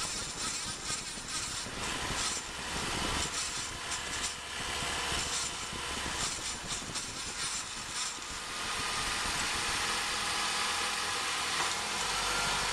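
Driving noise recorded under a 2008 Ford Focus at the front axle: a dense, uneven rush for the first eight seconds or so, then steadier. This is the cold-start noise from the front axle, which the owner suspected came from a broken spring off the front CV axle seal rubbing against the axle.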